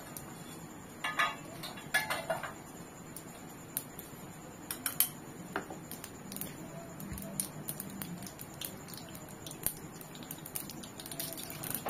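Mustard seeds and cumin crackling in hot oil in a kadhai during a tadka: irregular sharp pops, with a few louder clusters in the first two seconds and about five seconds in.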